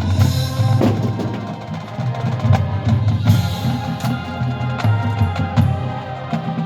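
High school marching band playing: drums and percussion striking repeatedly over sustained pitched chords from the winds and brass.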